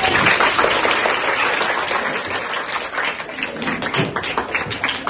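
A classroom of schoolchildren applauding. It starts abruptly and loud, then thins out into more scattered, separate claps toward the end.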